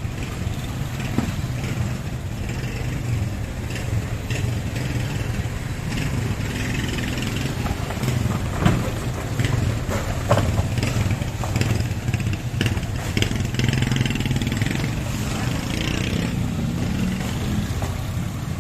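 A vehicle engine running steadily with a low hum, under scattered knocks and clatter and distant voices.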